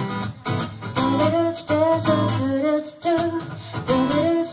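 Live pop song: acoustic guitar strumming under a woman singing the melody.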